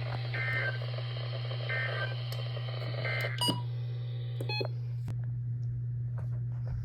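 NOAA Weather Radio's EAS end-of-message signal: three short warbling data bursts a bit over a second apart, over radio hiss. Then two short electronic beeps as the hiss drops away, with a steady low hum underneath.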